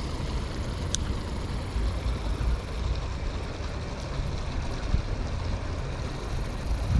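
Steady rush of water running through the ditch's current, with wind buffeting the microphone as a rumble. A single sharp click about a second in.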